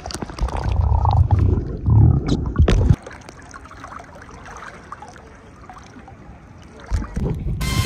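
Sea water sloshing and splashing close to the microphone at the water's surface, with a low rumble and small clicks, as a small dog swims. About three seconds in it drops to a faint background, and music comes in near the end.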